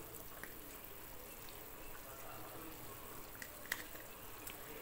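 Sardine curry gravy simmering in an aluminium pot, with small wet plops and splashes as pieces of sardine are slipped into it one by one. One sharp click about three quarters of the way through.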